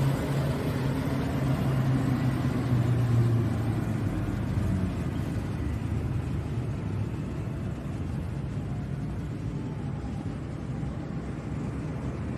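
City road traffic going past. A vehicle engine's low hum is strongest in the first few seconds, then fades after about five seconds into a steady traffic rush.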